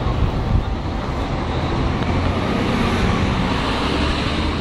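Steady city street traffic noise from passing vehicles.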